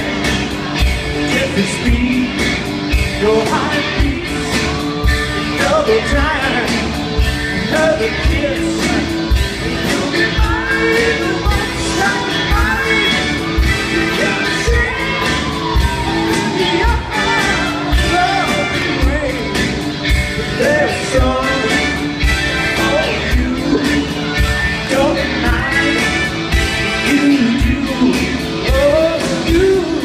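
Loud rock-and-roll song with a man singing lead over a steady drum beat.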